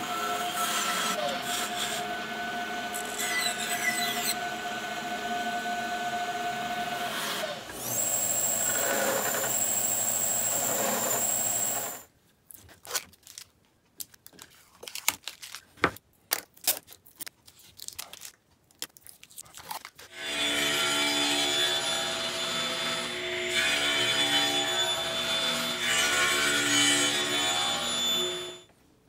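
Bandsaw running and cutting through a wood block, then a second machine with a high whine for a few seconds. After a stretch of scattered light taps and clicks, a table saw runs through another cut for about eight seconds and stops near the end.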